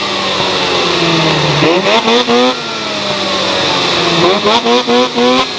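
Snowmobile engines revving in quick throttle blips, the pitch stepping up in short bursts and sliding back down, twice, over the steady running of engines.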